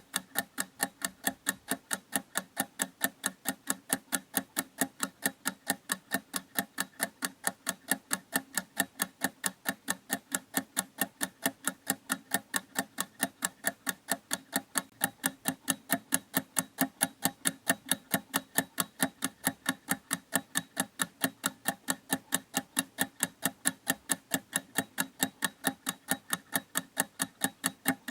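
Clock ticking steadily, with evenly spaced sharp ticks a few times a second.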